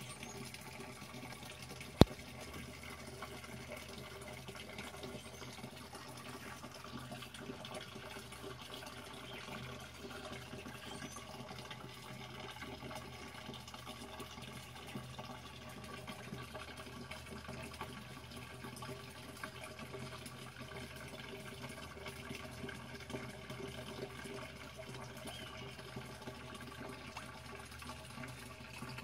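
Water steadily splashing and running into a pond, with one sharp click about two seconds in.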